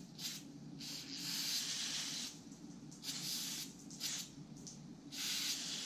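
Aerosol brake cleaner sprayed in about five hissing bursts of uneven length, used in place of carburetor cleaner to clean dirty small carburetor parts.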